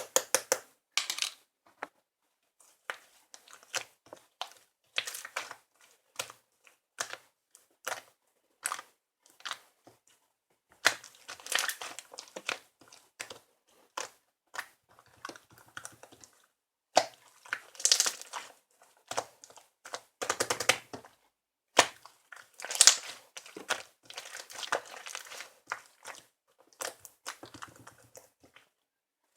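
Crinkling and rustling of something being handled, in irregular short bursts with brief pauses.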